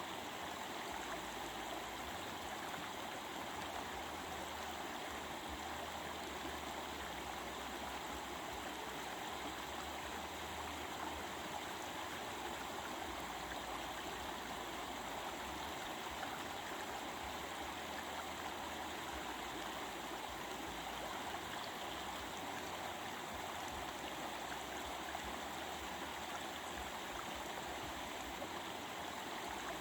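Stream of water flowing over rocks: a steady, even rush and babble with no break.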